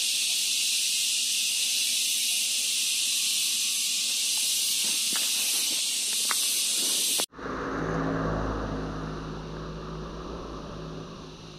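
A dense, steady insect chorus, a shrill hiss that the stopped rider finds relaxing to listen to. About seven seconds in it cuts off abruptly, and a low steady hum and rumble takes over and slowly fades.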